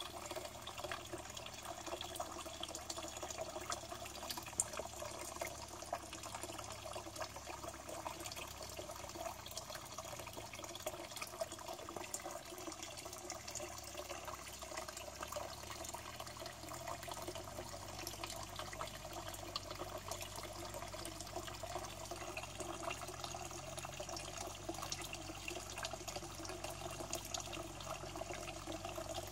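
Steady running, trickling water flowing into a pond.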